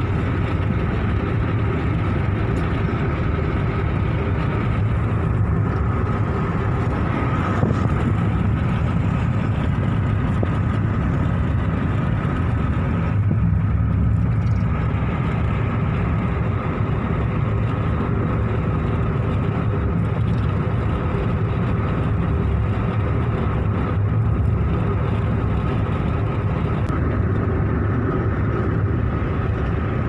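Steady car engine and road noise heard from inside the cabin while driving: a constant low hum with a faint steady whine above it.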